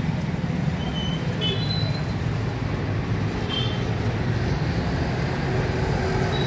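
Steady low rumble of road traffic, with a few short high chirps about a second and a half in and again past three and a half seconds.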